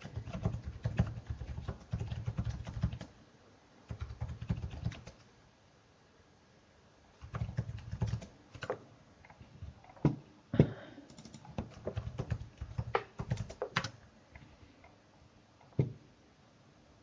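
Typing on a computer keyboard: four bursts of quick keystrokes separated by short pauses, then a single click near the end.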